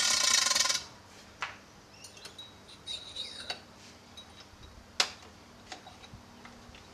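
Motorcycle fork parts and tools being handled: metal clinking with short ringing tones and sharp clicks, after a loud rushing noise that lasts under a second at the start.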